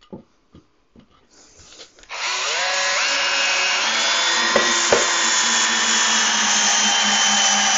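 Cordless drill driving a long wood screw into a 2x4. After a couple of seconds of light handling clicks the motor whine starts, climbs in pitch over about a second, then runs steadily with its pitch slowly sagging as the screw sinks in under load.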